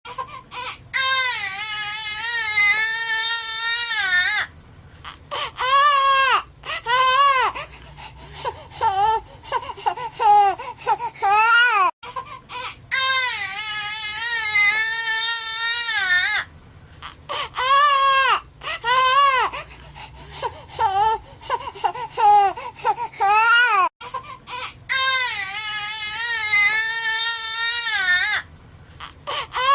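A baby crying: a long high wail, then a run of shorter, broken cries. The same stretch repeats about every 12 seconds, as a looped sound effect.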